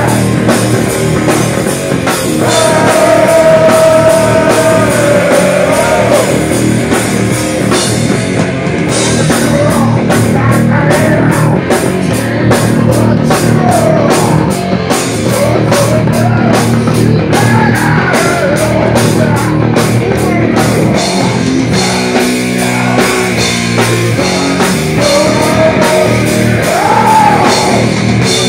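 Rock band playing loud: a male singer over distorted electric guitars and a drum kit. The drumming turns fast and dense through the middle.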